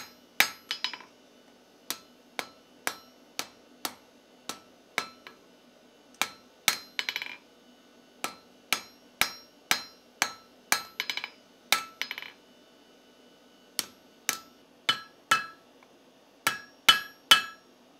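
Hand hammer striking a hot steel bar on a double-horn anvil to taper it: sharp blows at about two a second, each with a short metallic ring, and a few quick runs of lighter taps in between. The hammering stops briefly about two-thirds of the way through, then resumes.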